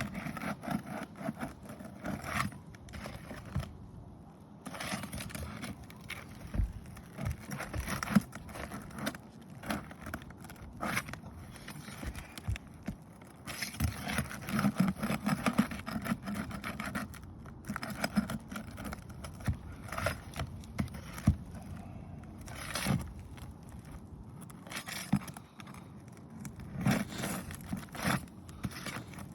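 A pry tool scraping and prying under lifted asphalt roof shingles to get at the nails, with irregular scrapes and sharp clicks.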